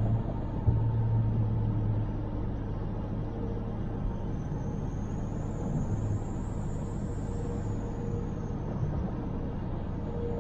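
Steady road and engine noise of a car driving, with a low hum that is strongest in the first couple of seconds and then eases.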